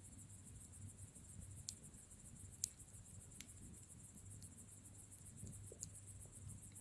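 Bonfire burning faintly, with a few sharp crackling pops, the loudest about two and a half seconds in, over a low rumble. A steady, fast, high-pitched pulsing runs beneath.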